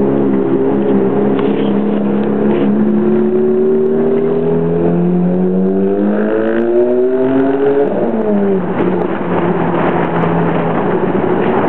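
Ferrari F430's V8 through a Novitec exhaust, pulling at low speed. Its note climbs slowly for about eight seconds, then falls away quickly and settles to a steadier, lower note.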